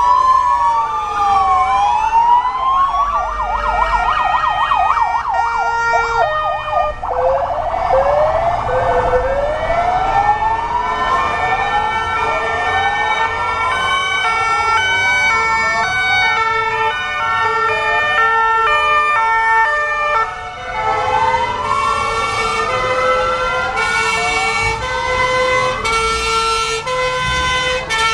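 Several emergency-vehicle sirens sounding at once. A wail sweeps up and down, with a fast yelp in the first few seconds, then repeated rising sweeps overlap with two-tone horns stepping back and forth between two notes.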